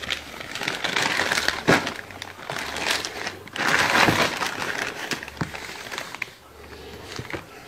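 Plastic bags crinkling and a stack of paper ballots rustling as they are handled and pulled out of their packet, in irregular bursts that die down after about six seconds.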